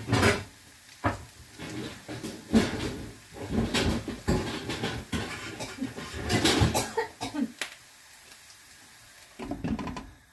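Kitchen cookware being handled: irregular knocks and clatters of pans and pan lids while a lid to fit the pan is sought, with a quieter stretch about eight seconds in.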